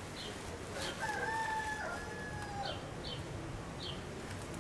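A rooster crowing once, about a second in: a single held call lasting under two seconds, with a few short high chirps around it.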